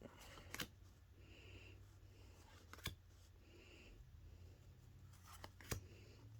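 Faint handling of Pokémon trading cards: soft rustling and sliding of card stock, with three short sharp clicks a couple of seconds apart.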